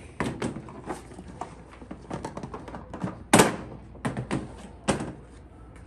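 Stacked hard-plastic Milwaukee Packout socket cases clicking and knocking as they are handled, with one loud thunk a little past halfway and a few smaller knocks after it.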